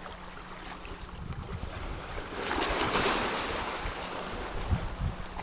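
Sea waves washing in on the shore at high tide in a choppy sea, one wave surging louder about halfway through, with wind buffeting the microphone in low thumps near the end.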